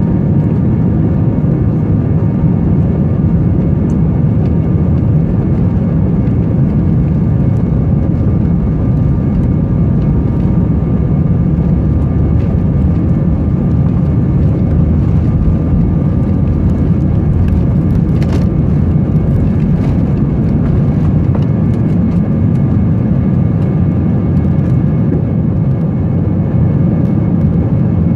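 Cabin noise inside an Airbus A320 during its takeoff run and climb-out: the twin turbofan engines at takeoff power make a steady, loud low rumble, with thin whining tones above it.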